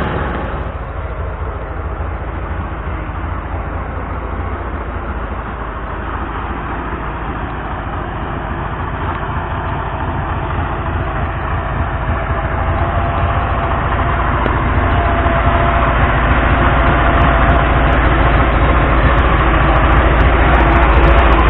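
ZAZ-968M Zaporozhets's air-cooled V4 engine running while the car is driven. The sound eases off right at the start, then grows gradually louder through the rest of the stretch as the car pulls.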